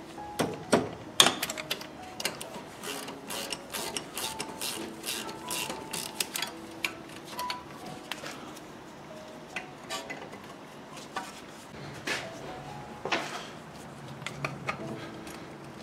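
Metal hand tools clinking and knocking against a car's front brake caliper in quick irregular strikes, the loudest about a second in, with quiet background music underneath.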